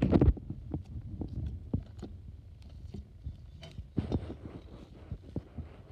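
Soft glittery slime squeezed and pressed by hand: wet squelches and small sticky pops and clicks, loudest just at the start and again about four seconds in.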